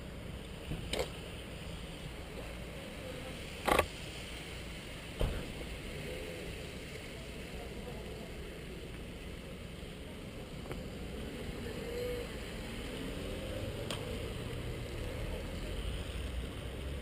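Steady muffled rumble picked up by a camera strapped to a motorcyclist's jacket, with three sharp knocks in the first five seconds, the middle one loudest, as the camera is jostled. The low rumble swells slightly in the last few seconds.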